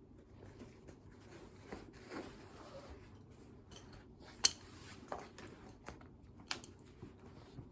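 Scattered light clicks and clinks of small objects being handled, with one sharper click about four and a half seconds in.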